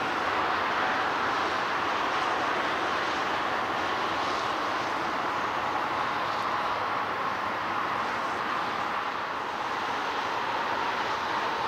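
Boeing 747-8F's four GEnx-2B turbofan engines running on the landing rollout: a steady rush with a faint whine.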